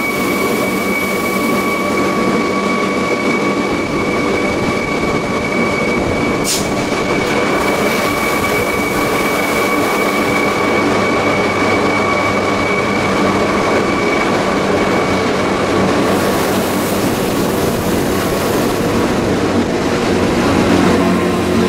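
An electric rack-railway railcar running uphill, heard from inside the car: a steady rolling rumble with a high steady whine. There is one sharp click about six and a half seconds in, and a louder low hum builds near the end.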